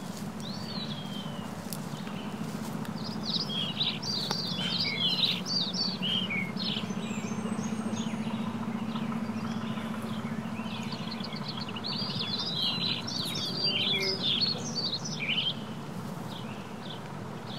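Songbirds chirping and warbling in a wood, in two busy stretches, over a steady low hum.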